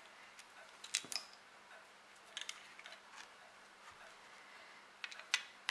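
Light metal clicks and taps of a nipple wrench working the percussion nipples out of a cap-and-ball revolver's cylinder, in small clusters about a second in, midway and near the end.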